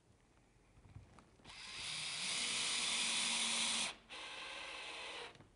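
Cordless drill-driver driving a screw through a plastic push-pad handle into MDF: the motor runs for about two and a half seconds, getting louder as the screw goes in, stops briefly, then runs again more quietly for about a second.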